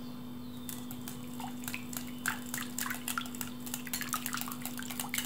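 Wire whisk beating a runny egg-and-milk batter in a glass bowl. From about a second in, the wires click against the glass in quick, uneven taps. A low steady hum runs underneath.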